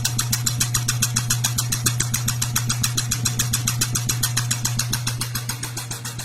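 Whirlpool washing machine in its spin cycle: the motor hums steadily with a rapid, even ticking, about ten ticks a second, but the drum does not spin up, a fault the uploader blames on a bad transmission. The sound eases a little near the end.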